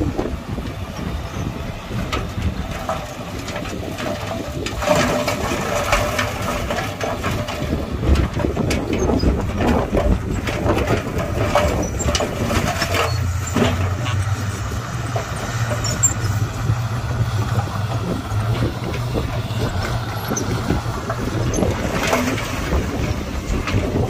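Diesel engine of heavy earthmoving machinery running, with repeated clanks and knocks throughout; the engine's low hum grows stronger about halfway through.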